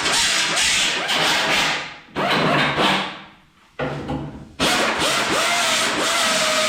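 Power grinder grinding weld build-up off the back of sheet metal, clearing burrs so a flange tool can clamp. It stops about three seconds in, winding down, then starts again over a second later and grinds steadily.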